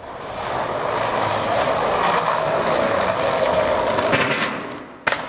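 Skateboard wheels rolling hard over brick paving. The rolling grows louder, holds, then fades, and a single sharp clack comes near the end.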